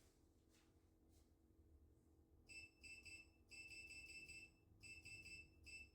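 Electronic beeping from a laser-training target: fast runs of short, high-pitched beeps, starting about two and a half seconds in, the kind of signal given when laser shots register.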